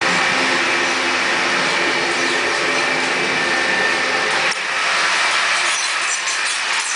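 Running noise of a passenger train at speed, heard inside a coach vestibule: a loud, steady rush with a low hum. About halfway through, a click, after which the low hum drops away.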